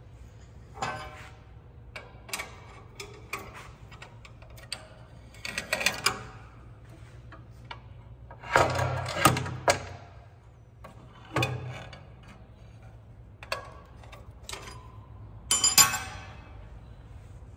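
Irregular metallic clicks and clunks of machined chassis and gearbox parts being handled, with a longer rattling clatter about halfway through and another short burst near the end.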